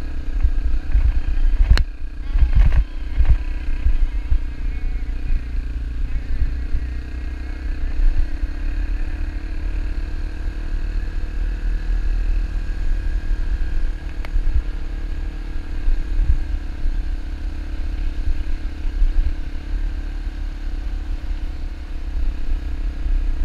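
Dirt bike engine running at a steady cruising pace on a gravel road, its pitch shifting a little, with wind buffeting the microphone. A few sharp knocks come about two to three seconds in.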